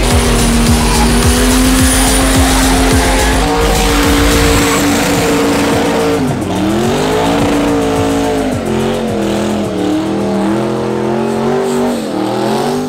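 Car engine held at high revs during a tyre-smoking burnout, over the hiss of spinning tyres. Its pitch holds steady, steps up about three and a half seconds in, dips sharply about six seconds in and climbs back, then wavers.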